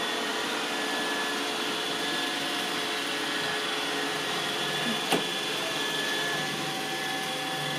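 iRobot Roomba 805 robot vacuum running steadily, a whirring noise with a few steady whining tones. A single click comes about five seconds in.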